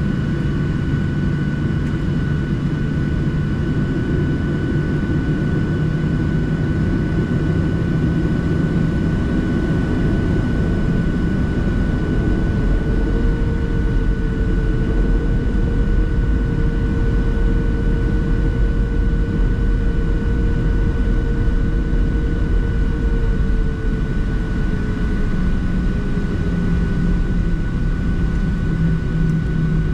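Boeing 737-700's CFM56-7B jet engines running steadily, heard as a loud low rumble inside the cabin with a steady high whine. A second tone rises about twelve seconds in, holds, then slides back down near the end.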